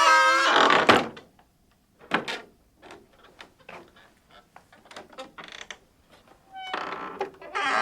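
Old wooden cabin door creaking on its hinges as it swings, ending with a knock as it shuts about a second in. Light knocks and rattles follow, then a second long creak starts near the end.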